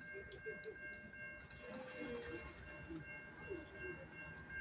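Grade-crossing warning bell ringing steadily in a high, even tone while the crossing gates come down: the signal that a train is approaching.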